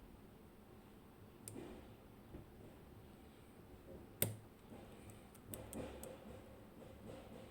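Lock pick working the pins of a Medeco M4 high-security lock cylinder under tension: faint scraping and scattered small clicks, with one sharp click about four seconds in.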